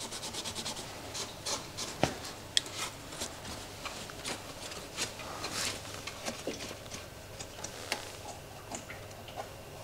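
Microfiber cloth rubbing over the plastic headlight lens and black surround of a BMW R1250GS, cleaning it with an alcohol-based cleaner. Short wiping strokes, a quick regular run of them at the start, then slower scattered wipes with a light knock about two seconds in.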